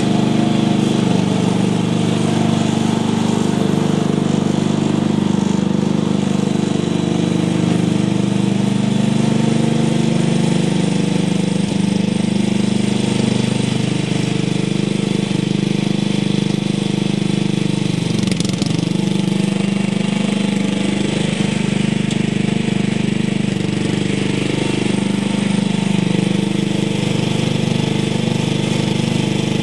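The 10 hp Briggs & Stratton single-cylinder engine of a 1980 Montgomery Ward lawn tractor running steadily as the tractor drives, its exhaust note coming through a muffler with a hole in it. Roughly two-thirds of the way through the engine note briefly dips and then recovers.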